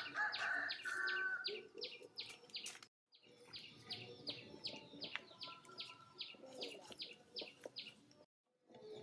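A bird repeating a sharp, falling chirp about four times a second, with a chicken's clucking call near the start. The sound drops out briefly twice.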